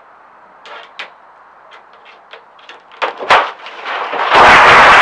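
Roll of thin sheet metal springing open as it is released: a few light metallic ticks and a sharp bang about three seconds in, then a loud, sustained clatter of the sheet flexing and flapping as it uncoils near the end.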